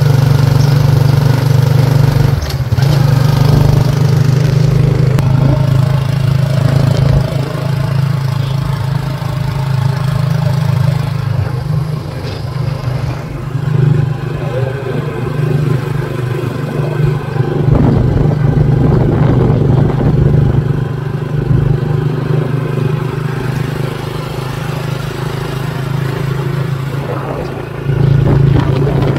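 A motor vehicle's engine running steadily, a low hum that eases off through the middle and grows louder again near the end.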